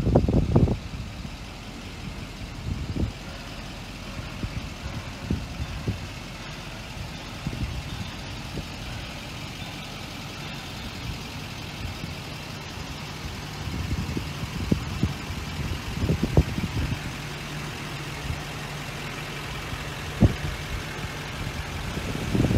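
The 6.6-litre V8 Duramax turbo-diesel of a 2006 GMC C4500 Kodiak idling steadily, with occasional short low bumps over it.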